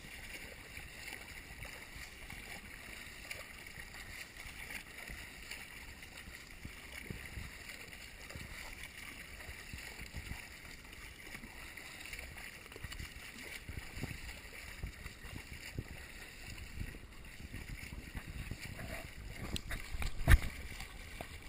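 Water splashing and sloshing from a swimmer's front-crawl strokes, with irregular low knocks, and one sharp, loud knock near the end.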